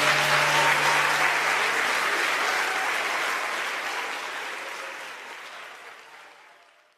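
Audience applauding after a sung piece, with the last held note of the music ending about two seconds in; the applause then fades out steadily to silence.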